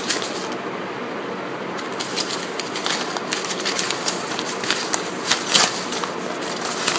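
A folded paper invoice being unfolded and handled, the paper rustling and crackling in short irregular bursts that grow busier partway through, over a steady hiss.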